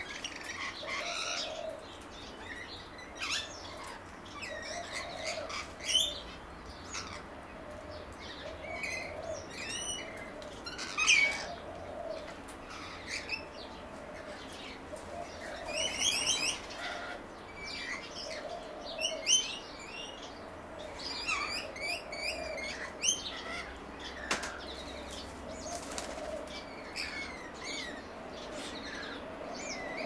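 Small songbirds chirping and twittering in short quick calls, with a dove cooing low at an even pace underneath, about once every second and a bit.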